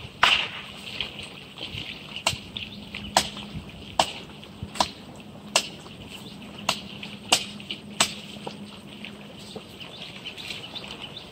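Outdoor riverbank ambience: a series of sharp clicks, roughly one a second, that thin out and stop about eight seconds in, over a steady high chirring and a faint low hum.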